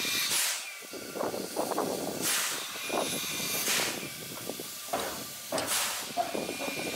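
JNR Class C11 steam locomotive hissing steam in repeated short bursts, every one and a half to two seconds, over a lower rattling as the hand-pushed turntable carrying it turns.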